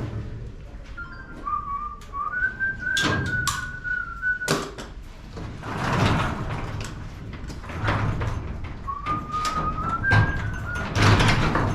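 A person whistling a tune in two phrases, a thin note stepping up and down in pitch, with sharp knocks and clatter of hand work in between.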